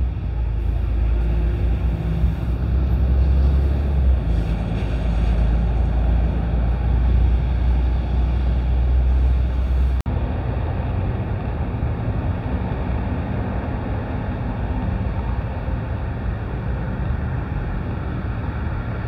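Steady low rumble of airport ambience: distant jet aircraft engines and ground traffic mixed with wind noise. It breaks off abruptly about halfway through and carries on as a slightly lighter, steadier rumble.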